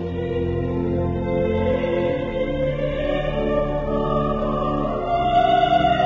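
Slow classical-style music with a singing voice holding long notes over a sustained accompaniment. The voice swells to a louder, higher note about five seconds in.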